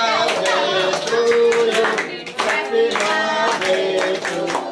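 A group of people singing together while clapping along in time.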